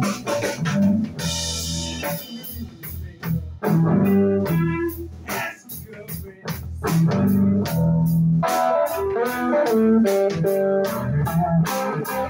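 Live blues-rock band playing: electric guitar over bass guitar and a drum kit, with steady, even drum strokes.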